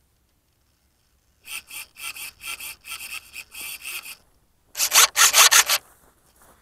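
Quick rustling swishes of footsteps through tall grass, about four a second, getting much louder about five seconds in as they come close.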